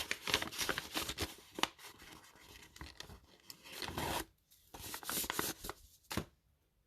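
Booster pack wrappers and paper envelopes being handled: rustling, crinkling and sliding with scattered clicks, busy at first and thinning out with short quiet gaps later on.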